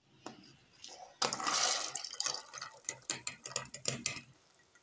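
Water pouring and splashing for about a second as parboiled beans are rinsed in tap water, followed by a run of small splashes and knocks.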